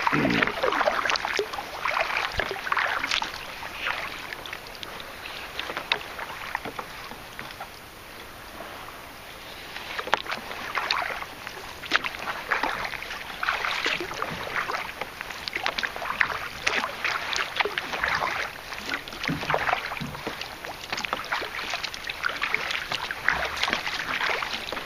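Kayak paddle strokes splashing through sea water, a stroke about every second or two, easing off for a few seconds near the middle.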